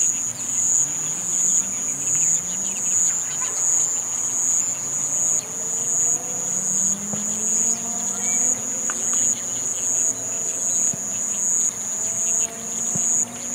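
A singing insect gives a high, shrill trill that swells and breaks off again in a steady rhythm, about one and a half pulses a second.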